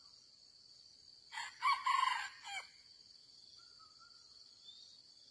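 Red junglefowl rooster crowing once, a short crow of about a second and a half, over a steady high drone of insects.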